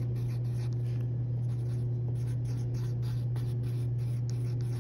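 Wooden pencil scratching on paper in short quick strokes, several a second, while drawing small gear shapes. Under it runs a steady low hum.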